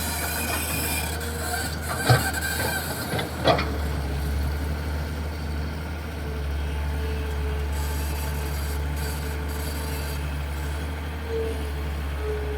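Hitachi EX220-3 LC long-reach excavator's diesel engine running steadily, with two sharp knocks about two and three and a half seconds in.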